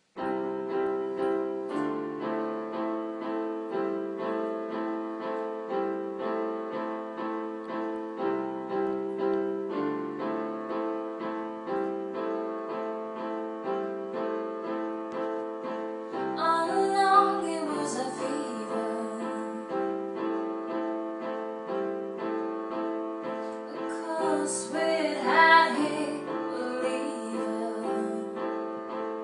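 Piano playing a repeated chord pattern, starting abruptly. A singing voice comes in briefly twice, about halfway through and again near the end.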